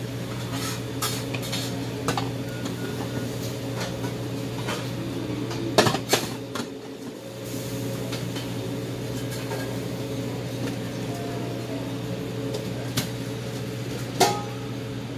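Shop ambience: a steady low hum, with a few sharp clinks and clatters of things being handled. The loudest clatters come about six seconds in and again near the end.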